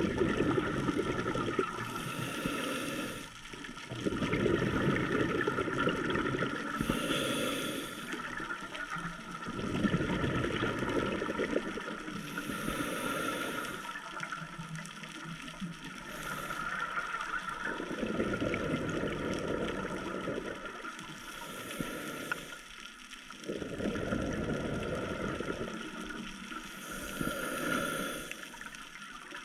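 Scuba diver breathing through a regulator underwater: a short hiss on each inhale about every five seconds, each followed by a longer gurgling rush of exhaled bubbles.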